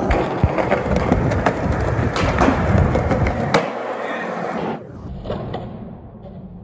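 Skateboard wheels rolling on smooth concrete, broken by sharp clacks of the board's tail and wheels hitting the ground during tricks. About five seconds in the sound cuts to a quieter clip of the same rolling.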